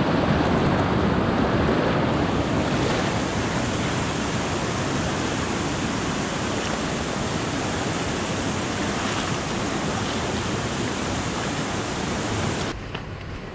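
Steady rush of water at a waterfall-fed mountain stream crossing, cut off abruptly near the end.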